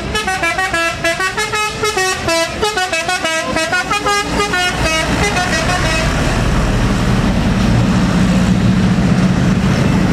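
A bus's telolet musical horn, several horn tones sounding together and stepping quickly through a melody. About five seconds in the horn stops, and the bus's engine running close by takes over, growing a little louder.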